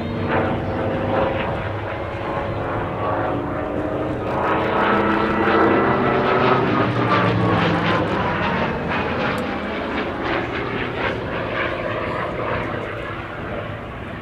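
Hawker Fury ISS fighter's Bristol Centaurus 18-cylinder sleeve-valve radial engine running in flight, its note shifting in pitch as the aircraft manoeuvres overhead. It is loudest about six seconds in.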